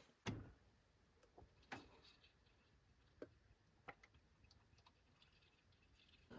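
Near silence, broken by a few faint, separate clicks and taps.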